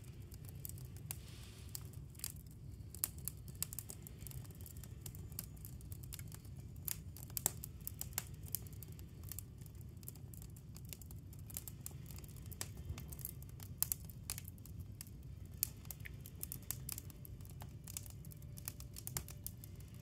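Wood fire burning in a fireplace, crackling with many irregular sharp pops and snaps over a steady low rumble.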